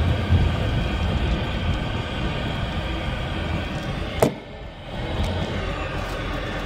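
Cabin noise of a truck creeping along a rough dirt trail: a steady engine and road rumble, with a sharp knock about four seconds in.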